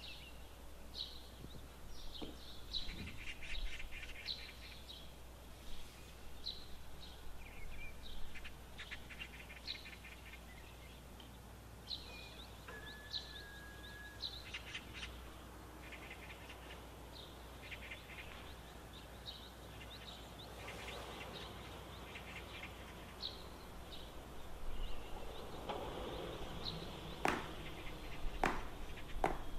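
Small birds chirping and trilling in short, repeated calls over quiet room ambience. A few sharp knocks come near the end as the metal cake pan is handled on the counter.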